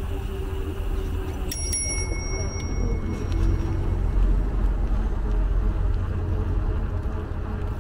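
Bicycle bell rung twice in quick succession about a second and a half in, its bright tones ringing on for about a second, over a steady low rumble.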